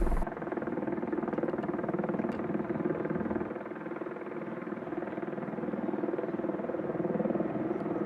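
MV-22B Osprey tiltrotors running with a steady, rapidly pulsing rotor thrum during departure. The sound dips a little about three and a half seconds in, then picks up again.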